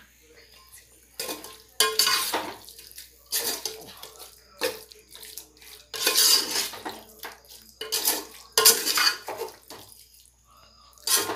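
Steel ladle scraping and clanking against the inside of a stainless steel pot as chicken pieces are stirred through a wet masala and curd mix, in irregular strokes about once a second.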